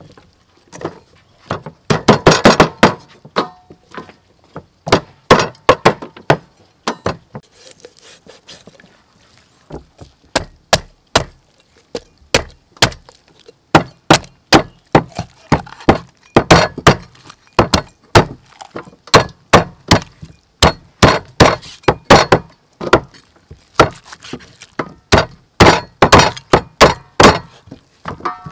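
Meat cleaver hacking whole raw chickens into pieces on a thick wooden chopping block: a long, uneven run of sharp thwacks, often several a second, with a brief lull about a third of the way in.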